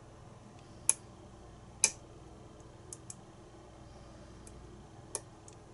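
Lock pick working the pins of a pin-tumbler challenge lock held in a false set, giving scattered small, sharp clicks. The loudest click comes a little under two seconds in.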